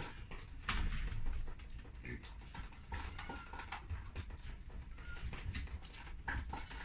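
A fox's and a Samoyed puppy's paws and claws pattering and clicking on wooden floorboards, in scattered irregular taps and light knocks, with a few brief faint high squeaks.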